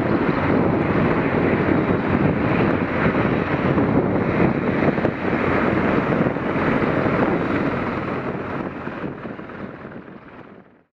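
AH-64E Apache helicopter's rotors and twin turboshaft engines running loud and steady as it lifts from a low hover and flies away, fading out over the last few seconds.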